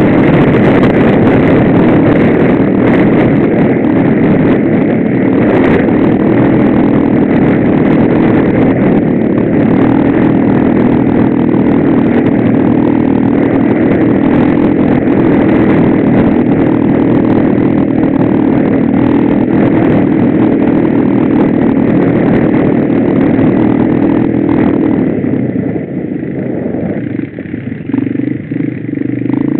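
Off-road motorcycle engine running at high revs under steady throttle, holding one pitch. About 25 seconds in it comes off the throttle and the sound drops and turns uneven, picking up again near the end.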